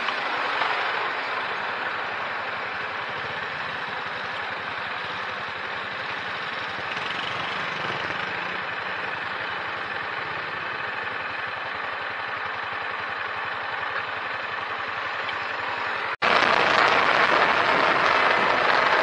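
Steady vehicle and traffic noise picked up by a dashcam inside a car's cabin, with no distinct events. About 16 seconds in it cuts abruptly to a louder stretch of the same kind of noise.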